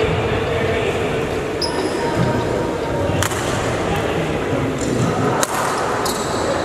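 A badminton racket striking the shuttlecock a few times during a rally, sharp hits about two seconds apart, over a steady murmur of spectators' voices.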